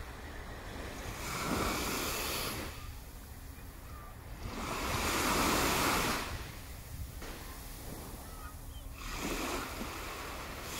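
Small Baltic Sea waves washing onto the shore: three swells of surf that rise and fall a few seconds apart, over a low steady rumble.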